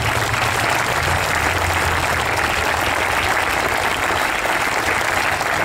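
Crowd applauding, steady dense clapping.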